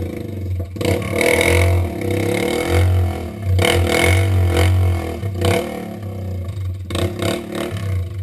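ATV engine revving up and down while riding, with rattles and knocks from the machine over rough ground.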